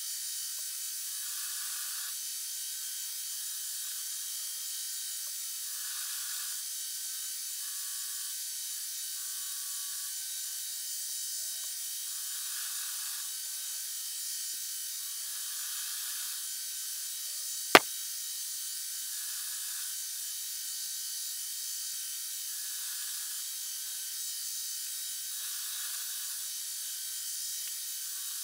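Milling machine end mill cutting a steel bar: a steady, high, hissing machining noise that swells slightly every three to four seconds. A single sharp click stands out partway through.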